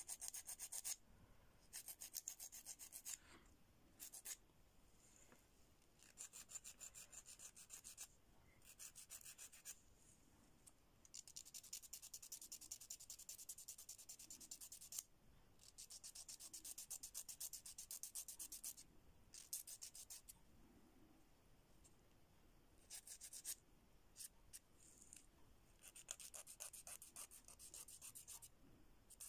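A Staleks nail file with a coarse replaceable abrasive pad rasping against a fingernail in quick back-and-forth strokes. The strokes come faintly, in bursts of one to a few seconds with short pauses between.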